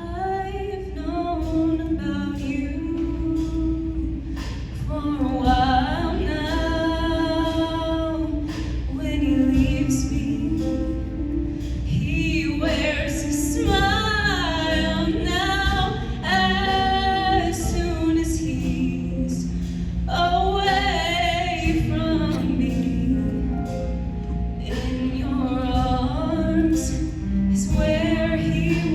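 Show choir singing in phrases over instrumental accompaniment.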